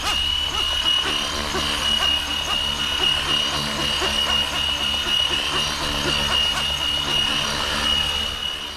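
FlyWing FW450 V3 electric RC helicopter hovering low and pirouetting, a steady high-pitched motor whine over the hum of the rotors, with small repeated rises and falls in pitch as it spins.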